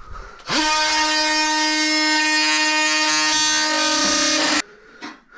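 Portable bandsaw motor spinning up and running at a steady high whine for about four seconds, then stopping abruptly.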